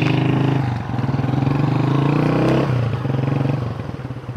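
Small motorcycle engine running under way, its pitch shifting with the throttle; it eases off about two-thirds in and drops back again near the end.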